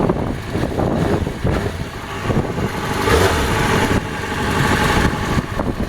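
Yamaha FZ6R's 600 cc inline-four engine running at idle after a fresh oil and filter change.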